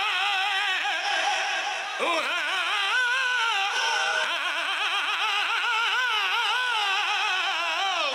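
A man singing a devotional praise song through a microphone and sound system, in long held lines with wide vibrato, breaking briefly about two seconds in before a new phrase swoops up.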